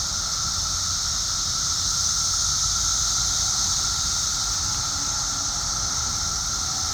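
A dense chorus of periodical cicadas: a steady, unbroken high drone with a lower buzzing tone beneath it, over a low rumble.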